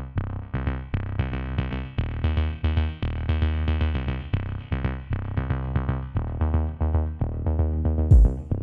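Electronic background music: a synthesizer riff over a heavy bass and drum-machine beat. Near the end, bright crashing hits and a sweeping effect come in.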